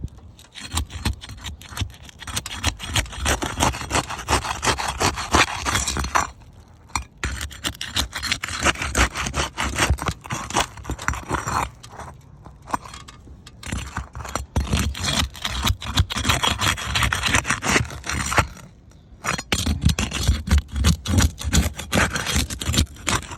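Aged asphalt shingles being pried apart and loose: long spells of dense scraping and crackling, stopping briefly three times. The roofer reads the granule loss from this prying as a sign the shingles are about 20 years old and likely not repairable.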